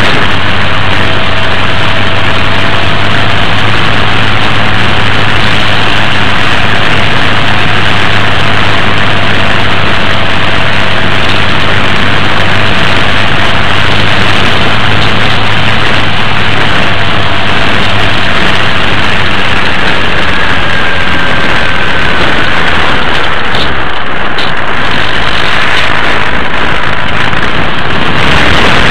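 An RC airplane's motor and propeller heard through its own onboard camera in flight: a loud, steady rush of engine and wind noise, with a faint tone drifting slowly up and down in pitch.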